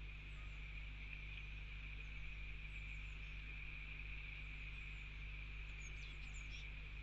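Steady high hiss with a low hum underneath, and a few faint, high-pitched bird chirps, most of them about six seconds in.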